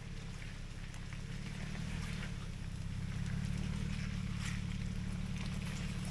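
Nissan Xterra engine running at low revs with a steady drone that rises slightly a few seconds in, over scattered crunches and crackles from tyres on the rough trail.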